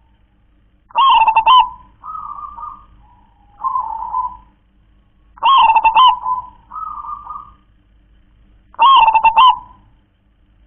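Caged zebra dove (perkutut) singing its rhythmic cooing song of the 'klar-ke-tek-kong' type. There are three loud phrases a few seconds apart, each followed by softer trailing coo notes.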